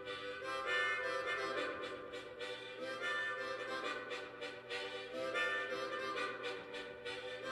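Live band music led by a reedy free-reed instrument playing held chords that change every second or two.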